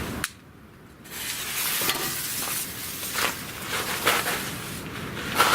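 Firework smoke ball hissing steadily as it burns. The hiss sets in about a second in after a brief quiet, with a few short crunches over it.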